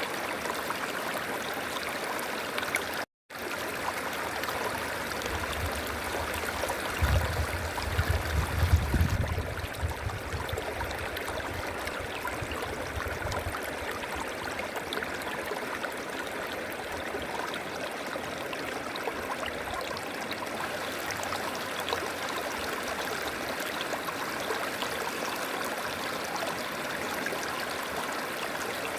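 River water flowing steadily over rocks. It cuts out completely for a moment about three seconds in, and a low rumble with a few louder peaks runs under the water for a few seconds near the middle.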